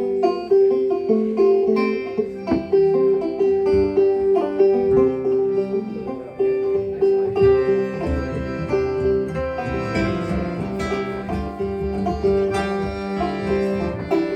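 Banjo, acoustic guitar and accordion playing an instrumental opening of an old-time folk tune: plucked banjo and guitar notes over held accordion tones, with no singing.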